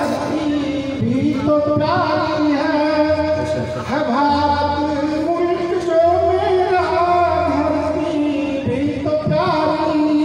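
A voice singing poetry to a melody, with long held notes that waver and glide.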